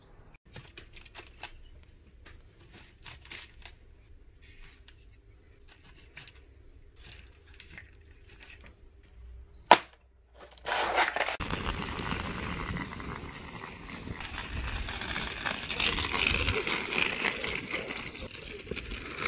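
Scattered light plastic clicks from a pill organizer being handled, with one sharp snap a little before halfway. Then a loud, steady rolling rattle and rumble of a pushchair's wheels running fast over tarmac.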